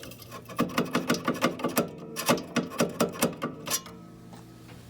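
A small Allen wrench jabbing and scraping in a rust-clogged pressure-switch port, making a fast run of metal clicks, about five a second, that stops near the end. A steady low hum runs beneath it.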